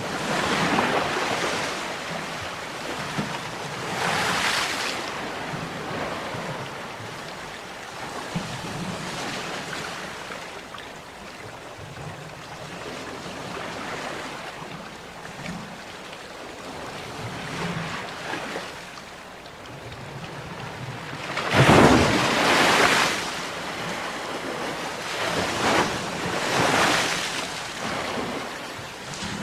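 Sea waves breaking and washing in, in repeated surges a few seconds apart, one much louder wave about two-thirds of the way through.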